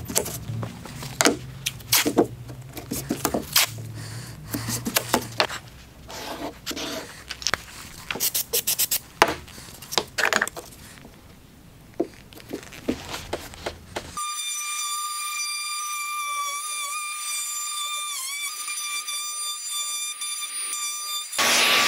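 Hands at work on the bench: tape pulled and pressed down and wooden pieces set in place, heard as a run of clicks, rips and taps. About two-thirds of the way in, a DeWalt 20V cordless compact router starts a steady high whine, its pitch dipping briefly as the bit cuts walnut along an MDF template.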